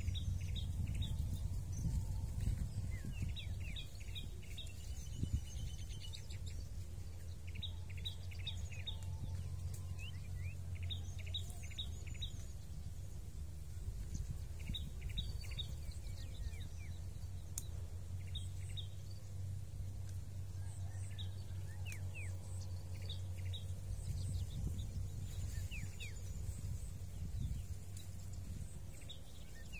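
Birds calling in short runs of quick, high chirps that recur every few seconds, over a steady low outdoor rumble.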